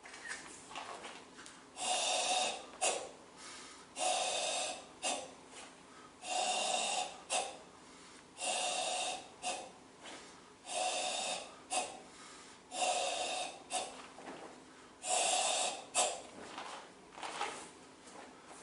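A karateka breathing out hard and hissing through the mouth, seven long forceful exhalations about every two seconds, each followed by a short sharp sound.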